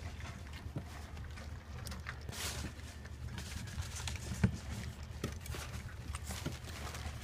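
Young puppies eating from a shared food bowl: quick, irregular wet smacking and lapping clicks, with one sharper knock about four and a half seconds in, over a steady low hum.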